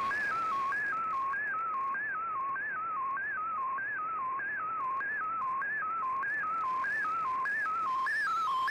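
Fldigi MFSK picture signal from an Icom IC-R8600 shortwave receiver: a single whistling tone stepping between three pitches in a repeating pattern about twice a second, over steady band hiss. The tone's pitch follows the brightness along each line of the colour picture being sent.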